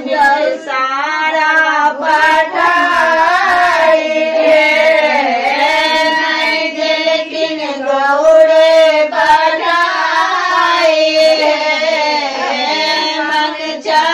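Female singing of a Maithili Madhushravani folk song, a high melody with long, wavering, ornamented notes.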